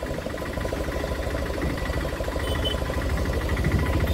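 Auto-rickshaw engine running during a ride, a steady rapid pulsing that grows slightly louder toward the end.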